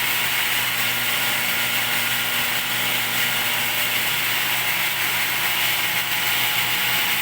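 Raw water pump and high-pressure reverse osmosis pump of a water purification system running together. Their electric motors make a loud, steady hum over an even hiss.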